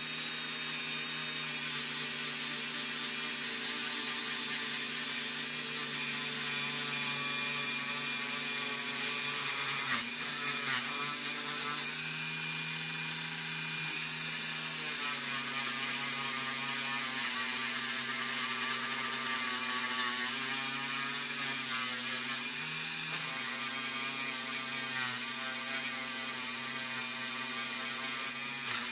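Handheld rotary tool running a yellow polishing wheel against a bare zinc die-cast toy car body, buffing it with metal polish. A steady motor whir and hum whose pitch shifts a little now and then, over a hiss from the wheel on the metal.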